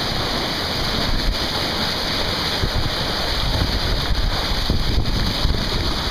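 Wind buffeting the microphone over the steady rush and splash of water along a moving sailboat's hull.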